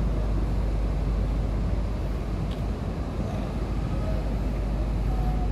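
Steady city street traffic: a continuous low rumble of passing vehicles.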